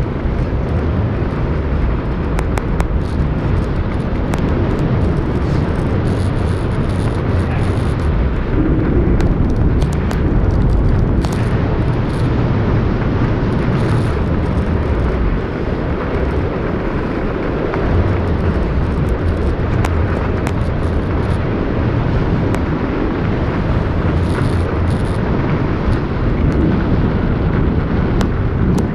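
Steady low rumble of wind buffeting a phone's microphone on an open ski slope, with a few faint clicks scattered through it.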